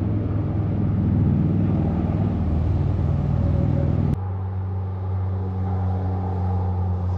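A vehicle engine running, its sound sitting low; about four seconds in it changes abruptly to a steadier, evenly pitched engine hum.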